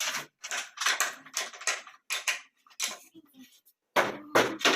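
Hand work on wood: a quick run of short, noisy strokes, several a second with brief silences between, the loudest near the end.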